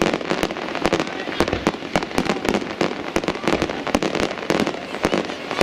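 Fireworks display going off: a dense, irregular run of sharp bangs and crackles, several a second.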